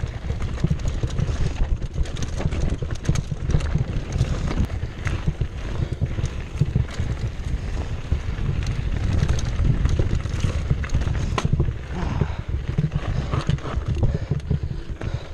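2015 Cannondale Jekyll 4 full-suspension mountain bike ridden fast down a dirt singletrack: tyres rolling on the dirt and the bike clattering and knocking over the bumps, over a constant low rumble.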